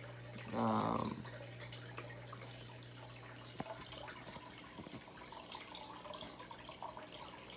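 Aquarium water trickling and bubbling, with air bubbles rising from an air-driven sponge filter, over a steady low hum. A brief voiced sound comes about half a second in.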